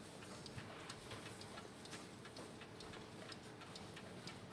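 Dutch wall clock ticking faintly and steadily.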